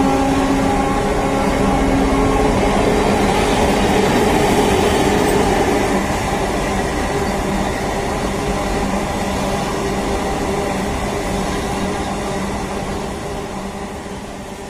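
Passenger train coaches running past at speed: a continuous rumble and clatter of wheels on rail with a steady hum, easing a little after about six seconds.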